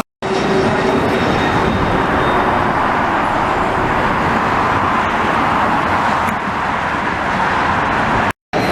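Steady, loud jet roar of an airliner passing low overhead on landing approach, blended with highway traffic noise, with the sound cutting out briefly at the start and again near the end.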